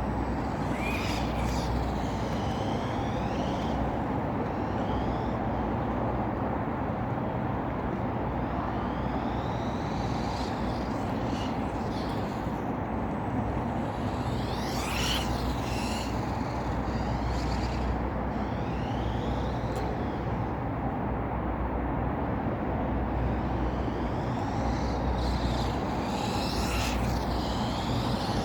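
Electric motors of a remote-controlled Lego Technic buggy, six Mould King motors on a Hobbywing 1060 speed controller, whining up and down in pitch as it speeds up and slows, several times over, above a steady rushing noise.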